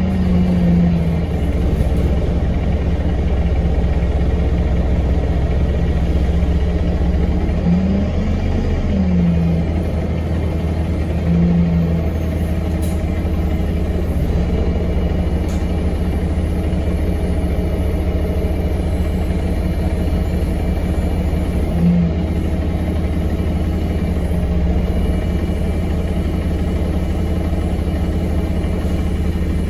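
A 2017 Alexander Dennis Enviro 200 MMC single-decker bus's diesel engine and running noise, heard from inside the passenger saloon as a steady low drone, with a few brief changes in engine pitch.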